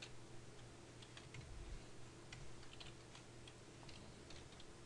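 Faint, scattered clicks of a computer mouse and keyboard keys over a low steady hum.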